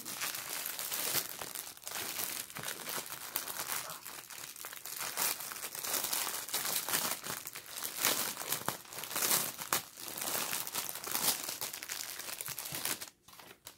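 Clear plastic bags crinkling and rustling in continuous crackles as they are handled and opened, stopping just before the end.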